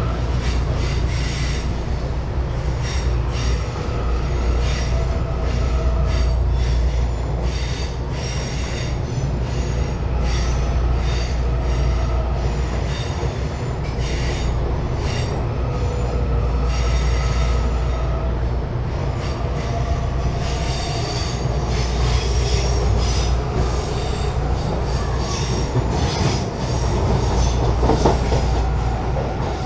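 Electric commuter train running, heard from inside the passenger car: a steady low rumble with irregular clicks of the wheels over the rails. Thin wheel squeal comes and goes throughout.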